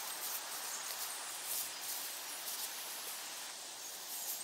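Steady outdoor woodland ambience: an even hiss with a few faint, short high-pitched ticks.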